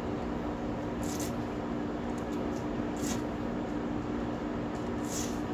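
Steady machine hum with a constant low tone, with three short soft hissing scuffs about two seconds apart.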